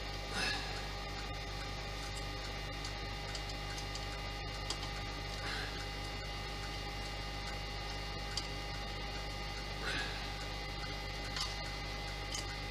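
Steady electrical mains hum, with a few soft rustles and two sharp light clicks from the small screws and plastic parts of a model aircraft being handled.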